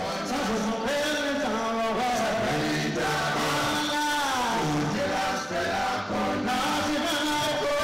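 Several male voices of a Zimbabwean band singing together in a chant-like group vocal, over the band's bass and drums, played live.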